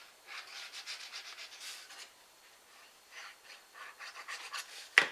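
Fine-tip liquid glue bottle's nib scratching and rubbing across cardstock as lines of glue are drawn onto the box flaps, with light rustling of the card, in two spells. A single sharp tap near the end.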